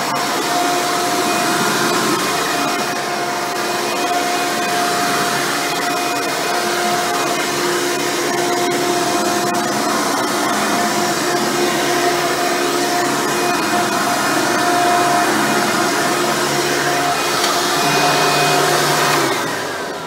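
Hoover Preferred upright vacuum, fitted with a new-old-stock replacement motor and a single-row brush roll, running steadily over carpet: airflow rush with a steady motor tone. Near the end the motor winds down.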